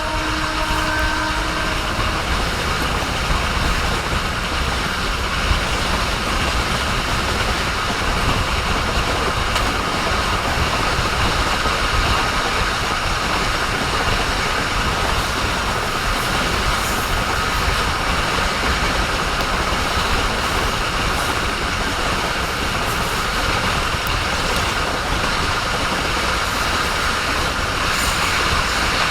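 Train running on the rails, a steady, even noise with a faint high tone held throughout; a few pitched tones die away about two seconds in.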